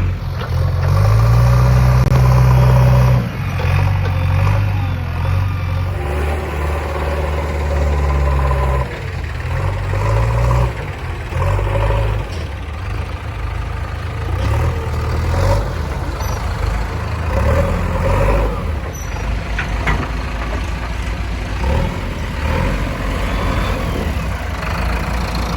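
Heavy diesel engine running, its speed rising and falling as it works, loudest in the first three seconds.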